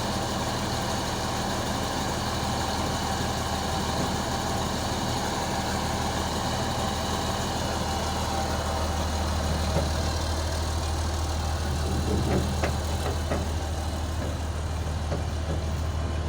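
Engine of a large Mercedes machine idling steadily, with a low drone that firms up about halfway through and a few light clicks near the end.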